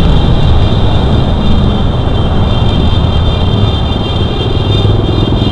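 Riding sound of a Yamaha Sniper 150 motorcycle heard from a rider-mounted action camera: wind buffeting the microphone over the steady drone of its single-cylinder engine, with a steady high-pitched whine on top.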